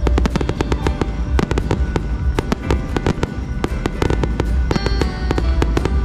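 Star mine fireworks barrage: aerial shells bursting in rapid, dense succession, with many sharp bangs and crackles overlapping.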